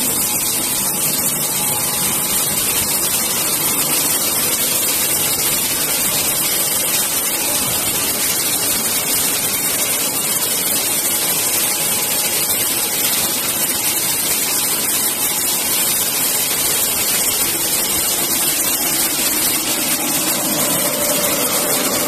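Plastic bag pelletizing line running: a loud, steady machine noise with a strong hiss and no breaks.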